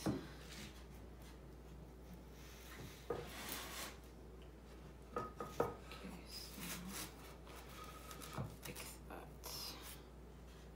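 Pine boards being shifted and fitted together by hand: a few short wooden knocks at irregular moments, with light scraping of wood on wood between them.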